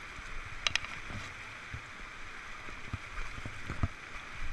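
Steady rush of white water running through a river riffle, with scattered sharp ticks and a few low knocks from pushing through tall grass on the bank.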